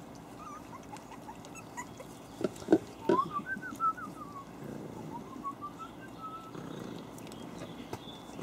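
Havanese puppies whimpering in thin, high squeaks that rise and fall in short strings, with a few sharp knocks around three seconds in as the loudest sounds.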